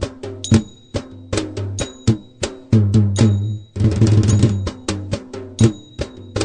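Hand drum played in a fast, busy rhythmic pattern of sharp strokes, many with a deep ringing boom.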